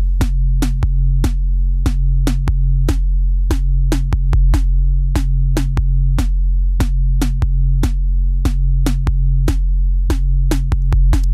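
Background electronic music: a drum-machine beat of quick, even strikes over a steady bass.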